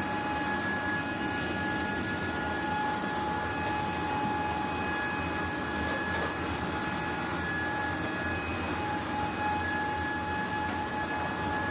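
Jet aircraft engines running steadily: an even rushing roar with a constant high whine over it.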